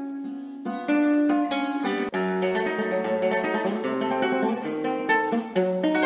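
Solo classical guitar played with tremolo: a rapidly repeated melody note over plucked bass notes, some on strings tuned down to low D and G. The notes ring on in a reverberant church.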